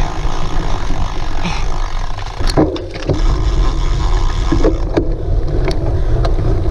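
Wind buffeting the microphone while a cyclocross bike rattles over rough ground, with a few sharp knocks.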